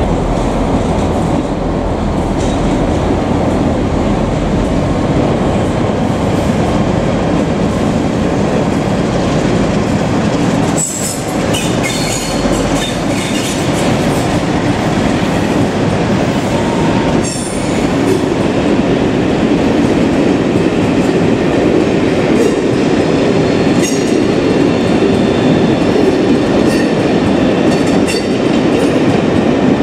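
Diesel locomotive hauling a train of coaches past at close range: steady engine and rolling noise with wheels clattering over the rail joints, and high-pitched wheel squeal coming in stretches in the middle and latter part as the coaches run round the curve.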